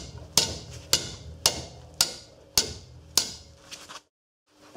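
Hammer blows on a steel punch, about seven sharp metallic strikes roughly two a second, each with a short ring, driving the rust-seized ABS sensor casing out of its bore in the hub. The strikes cut off suddenly near the end.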